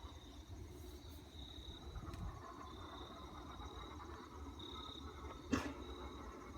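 Insects trilling: a high, thin tone that keeps coming and going over a low steady rumble, with one sharp click about five and a half seconds in.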